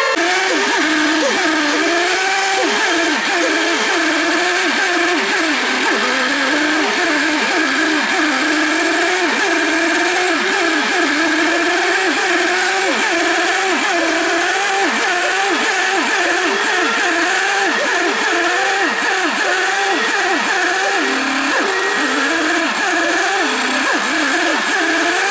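Several small engines of radio-controlled racing boats running at once, each revving up and down so their pitches rise and fall and overlap continually.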